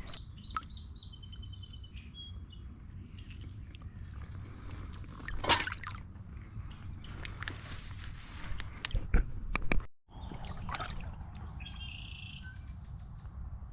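Outdoor streamside sounds: a bird gives a short high trill about a second in and another brief call near the end, over a steady background of running water. Several sharp splashes or knocks come through the middle, likely from handling the caught trout at the water.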